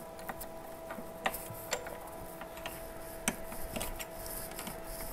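Wrenches clicking and tapping on the mini CNC router's spindle collet nut as the end mill is loosened: a few faint, irregular metallic clicks, over a faint steady hum.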